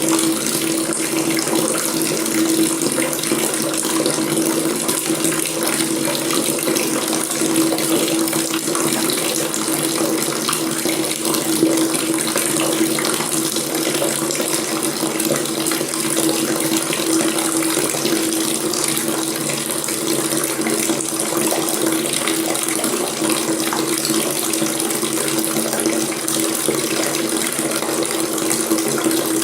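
Water running steadily from a faucet, a continuous even splashing rush with a steady low hum in it.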